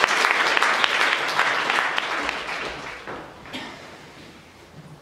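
Audience applauding, many hands clapping at once, dying away over the last couple of seconds.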